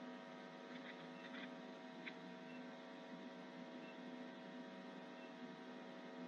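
Faint steady electrical hum with a low background hiss, broken by a few faint ticks.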